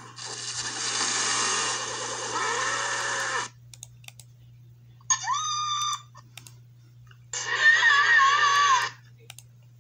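Cartoon screams from parody clips playing through a laptop speaker and picked up off the screen: a long, harsh, noisy cry, then two shorter screams with wavering pitch, over a steady low electrical hum.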